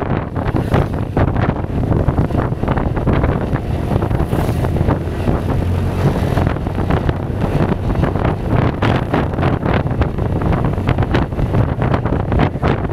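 Wind buffeting hard on the microphone of a moving Kymco Xtown 300i maxi-scooter, its single-cylinder engine running under the wind noise as it climbs.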